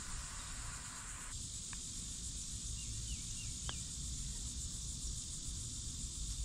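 Outdoor ambience: a steady low wind rumble on the microphone under a steady high insect hiss, with a few short bird chirps in the middle and two faint clicks. The background shifts abruptly a little over a second in.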